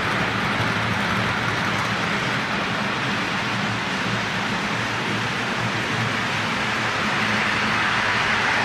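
O gauge toy trains rolling on three-rail track: a steady rumble of metal wheels on rail over a low motor hum, growing a little louder near the end as a second train draws close.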